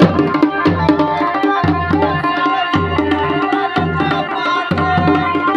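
Garhwali dhol and damau drums playing a traditional rhythm, with a deep stroke about once a second under a held melody line.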